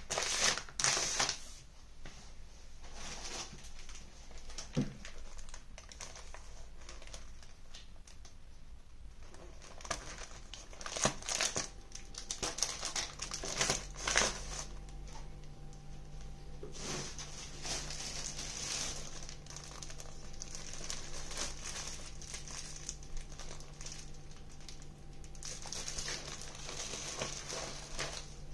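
Plastic bread bags and paper bakery bags crinkling and rustling in irregular bursts as the packages are picked up and set down on a table. A faint low hum comes in about halfway through.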